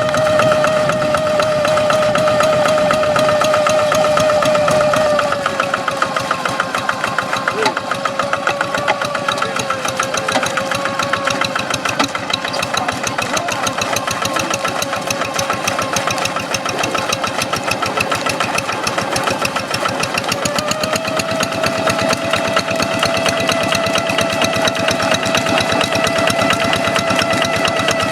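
Blue Kubota diesel engine on a hand tractor running with a steady high whine ("ngiung ngiung"). About five seconds in it drops slightly in pitch and loudness as it takes load, and it picks back up around twenty seconds in.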